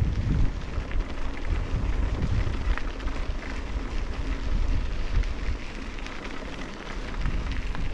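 Wind buffeting the microphone of a camera carried on a mountain bike descent, with a crackly rattle of tyres running over a gravel road. The rumble eases a little in the middle and picks up again near the end.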